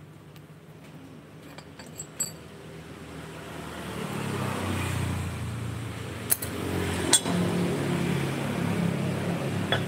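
A motor engine running with a low, steady hum that swells in about four seconds in. It is broken by two sharp metallic clinks a little under a second apart, like spanners knocking together.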